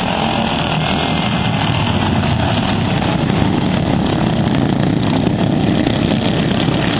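Racing lawn mower engines running steadily and loudly.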